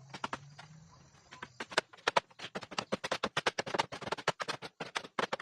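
A rapid, irregular run of small sharp taps and clicks, sparse at first and becoming quick and busy about a second and a half in.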